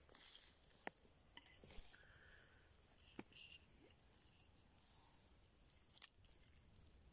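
Near silence with a few faint, sharp crackles and clicks of moss and dry forest litter being handled, the loudest about six seconds in as a hand grips a mushroom growing in the moss.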